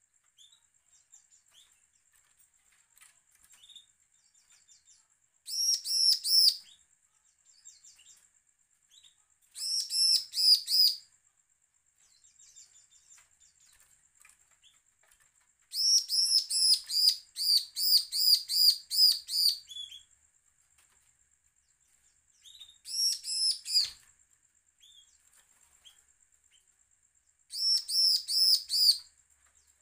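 A caged bar-winged prinia (ciblek) gives its threatening song: five bursts of rapid, high, ringing repeated notes, the middle burst running about four seconds and the others about a second each. Faint ticks come between the bursts, and there is a single knock at the end of the fourth burst.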